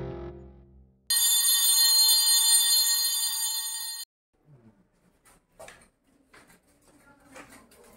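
An electric bell rings steadily for about three seconds, starting and cutting off abruptly, just after background music fades out. Faint footsteps and light knocks follow.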